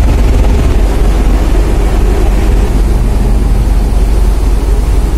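Steady, loud low rumble on the open deck of the KMP DLN Oasis ferry under way at sea: the ship's engine drone and water rushing along the hull, with wind buffeting the microphone.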